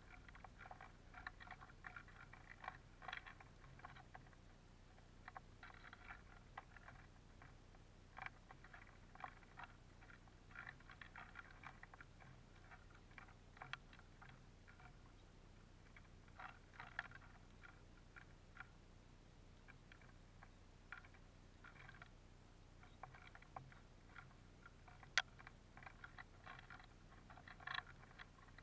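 Faint, irregular clicking and crackling of Eurasian siskins and a bullfinch pecking at and cracking sunflower seeds in a wooden feeder tray, with one sharper tap near the end.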